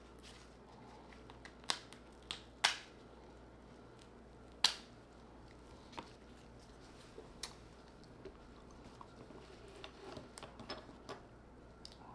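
King crab leg shell cracking and snapping as it is bent apart by gloved hands: a handful of sharp cracks, the loudest about two and a half seconds in, then a run of smaller crackles near the end.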